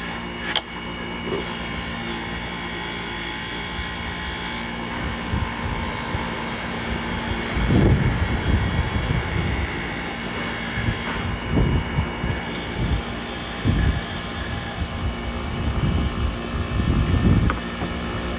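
Old Snap-on bench grinder running steadily with a constant motor hum. From about eight seconds in, gusts of wind buffet the microphone.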